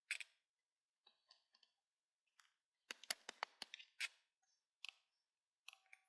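Faint, scattered clicks and taps with near silence between them, and a quick run of sharper clicks about three seconds in.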